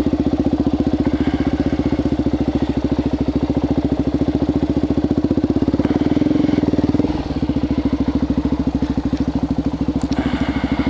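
Suzuki DR-Z400SM's single-cylinder four-stroke engine running at a steady idle, its exhaust fitted with a silencer insert that doubles as a spark arrestor. It rises slightly about six seconds in, then settles back.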